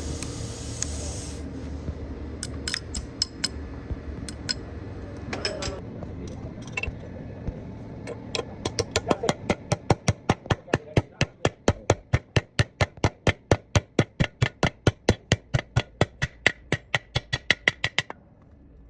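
Hammer striking metal while a gearbox bearing is being driven: a few scattered knocks, then a steady run of sharp blows at about four a second that stops suddenly near the end. A short hiss comes at the very start.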